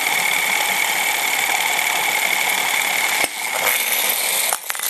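Small battery-powered toy motor whirring steadily with a high whine as a light-up saucer-shaped toy spins and wobbles on a hard floor. About three seconds in there is a click, and the whine drops away.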